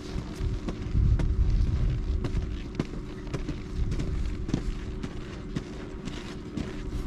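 Irregular crunching and scraping of hard-packed snow under a rider moving slowly across flat ground, with a low wind rumble on the microphone.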